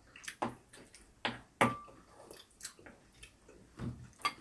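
A spoon clinking and scraping against a ceramic bowl while black-bean-sauce noodles are mixed, making a handful of irregular short clicks and knocks, one of them ringing briefly.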